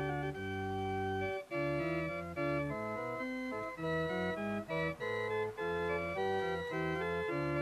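Organ music: full, held chords whose notes change several times a second, with a few short breaks between phrases.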